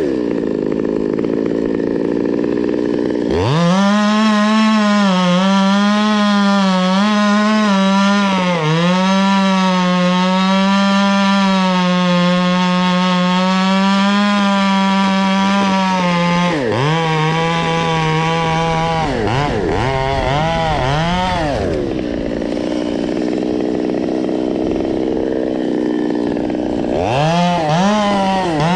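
Stihl 200T two-stroke top-handle chainsaw at low speed, then revved to full throttle about three seconds in. It holds high revs with a wavering pitch for about thirteen seconds, as when cutting through wood. It then drops back, is blipped several times, settles lower for a few seconds and revs up again near the end.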